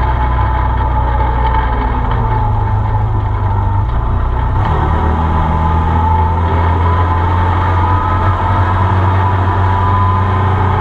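Arctic Cat Wildcat side-by-side UTV's engine running under way on a dirt trail, heard from inside the open cab. Its note holds steady and shifts about four and a half seconds in.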